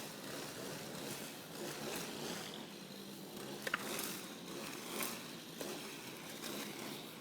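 Gasoline-powered street-cleaning machines running steadily, heard as a continuous mechanical hum with a few scattered clicks.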